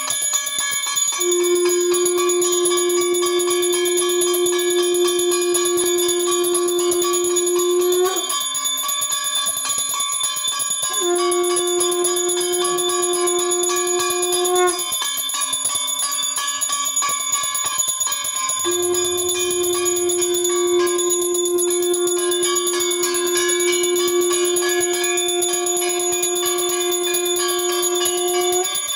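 Brass hand bell rung rapidly and without a break during an aarti. Over it, a loud, steady blown note is held three times, the first and last for many seconds each.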